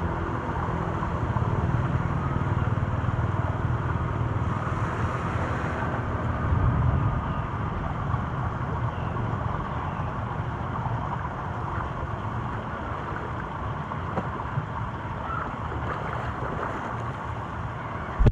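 Floodwater rushing steadily into a clogged street culvert drain as it is being cleared, with a deeper rumble swelling about six seconds in and a short thump at the end.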